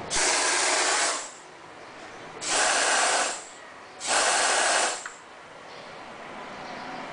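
Compressed air hissing out of a pneumatic tool line in three bursts of about a second each, with short pauses between, as the air supply is triggered on and off.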